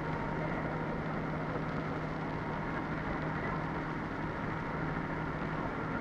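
Steady street noise with a motor vehicle's engine running.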